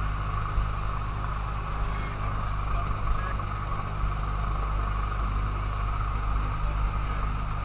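Cessna 150's four-cylinder Continental O-200 engine and propeller running steadily at low power, heard from inside the cockpit.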